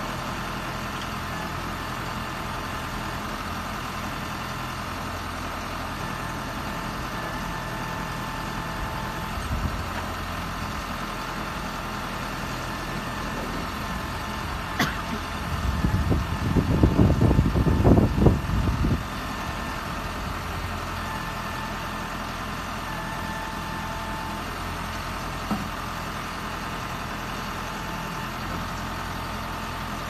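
Backhoe loader's diesel engine running steadily while the rear backhoe digs in soil and rubble. About halfway through comes a louder, rough stretch of about three seconds as the bucket works through the rubble, with a few short sharp knocks.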